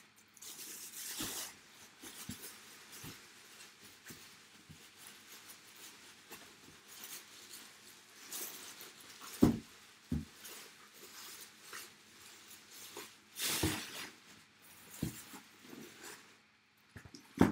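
Handling noises: on-and-off rustling of packaging with a few knocks and thumps, the loudest knock about nine and a half seconds in.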